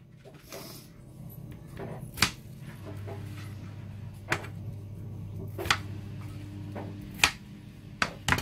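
A kitchen knife cutting melon on a chopping board, the blade striking the board in sharp knocks a second or two apart, over a low steady hum.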